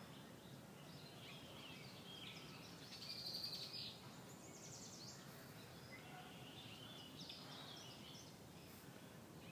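Several birds chirping and singing faintly over a steady low outdoor background noise, with a louder rapid trill about three seconds in.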